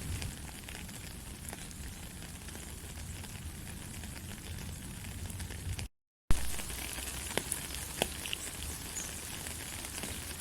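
Steady rain falling, an even hiss with a few sharp drip-like ticks. About six seconds in the sound cuts out completely for a fraction of a second, then comes back with a sharp click.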